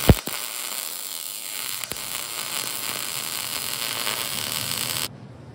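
Welder laying a weld on a steel bracket: a steady crackling hiss that starts just after a sharp knock and cuts off abruptly near the end.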